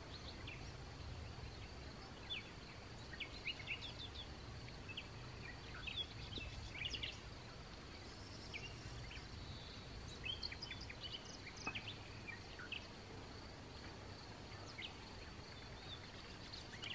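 Outdoor ambience: birds give scattered short chirps over a steady high insect trill, with a low background rumble underneath.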